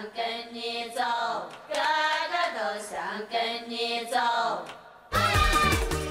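Several voices singing together in long phrases that rise and fall, with no backing. About five seconds in the singing cuts off, and music with a heavy beat starts.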